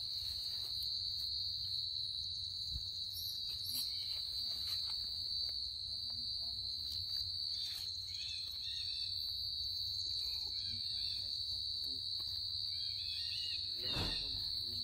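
Insect chorus droning on one steady high note without a break, over a low rumble, with faint short chirps about halfway through and near the end.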